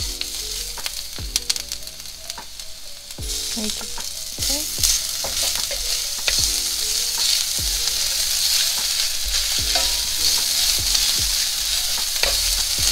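Minced garlic and ginger sizzling in hot oil in a skillet, with scattered clicks and scrapes of a utensil against the pan as they are stirred. The sizzle grows louder about three seconds in.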